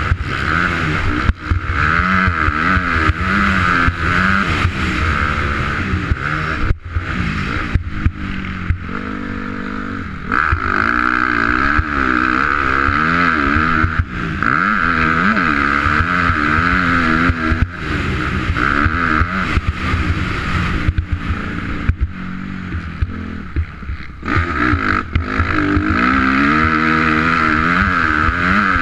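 2004 Honda CRF250R's single-cylinder four-stroke engine being ridden hard: it revs up and drops back over and over as the throttle is opened and chopped, with wind rush and scattered knocks from the bike over the bumps.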